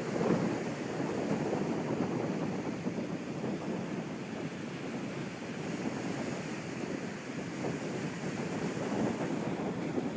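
Ocean waves washing in steadily, swelling a little louder just after the start and again near the end.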